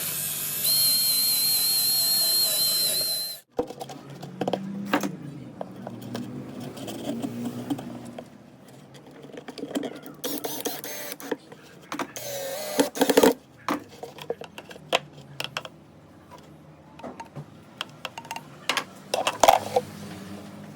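A loud hissing noise with a wavering high tone for about three and a half seconds, cutting off suddenly, then irregular clicks and knocks.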